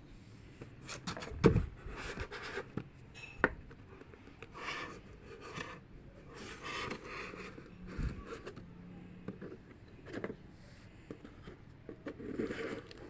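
Packaging being handled and opened by hand: irregular rustling and scraping, with a few sharp knocks, the loudest about a second and a half in.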